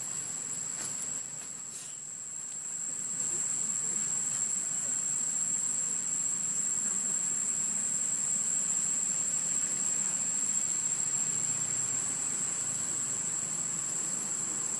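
Insects droning steadily in a chorus, one continuous shrill high-pitched note over a faint hiss.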